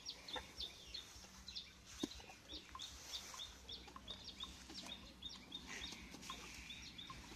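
Faint high chirping from a small animal, short calls repeated several times a second without a break, with a single sharp click about two seconds in.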